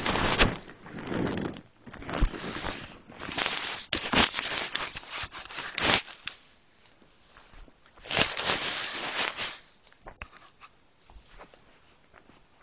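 Handling noise from a phone being moved and repositioned on bedding: its microphone rubs and scrapes against fabric in several rustling stretches with knocks, and the noise dies down for the last few seconds.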